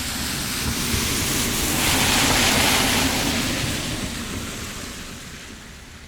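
A steady rushing noise, with no distinct tones or knocks, swelling up over the first two seconds or so and then slowly fading away.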